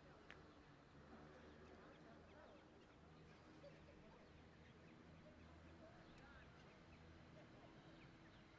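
Near silence: faint outdoor ambience with a low hum and scattered faint chirps.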